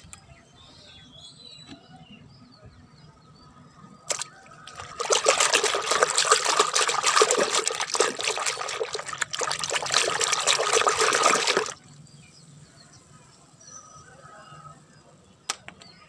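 Soapy water in a plastic bucket splashing and trickling as a hand swishes through it, starting about five seconds in and stopping abruptly near twelve seconds. A few short knocks are heard before and after it.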